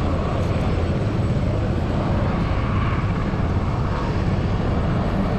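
Beta Technologies ALIA all-electric aircraft's pusher propeller running steadily as the plane passes low along the runway: a continuous drone with a low hum under it.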